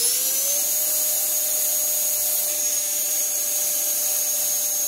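Electric ducted fan on a thrust test stand, spooling up to full throttle and then holding a steady high whine over rushing air from about half a second in. It is blowing through a 54 mm nozzle outlet during a static thrust test.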